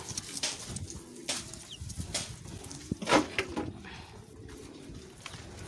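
Day-old turkey poults and chicks peeping faintly in a cardboard brooder box, over rustles and knocks from a hand handling the box edge and its plastic cover. The loudest knock comes a little past halfway.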